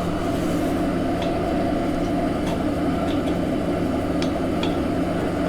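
Old air compressor running steadily as it slowly fills its tank, a constant mechanical hum, with a few light clicks of metal fittings being handled.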